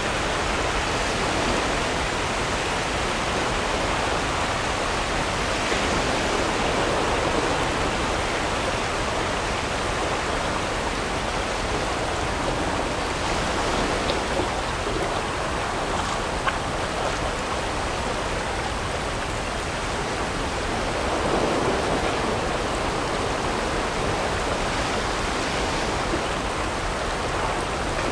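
River rapids rushing steadily, with whitewater breaking over rocks close around an inflatable raft.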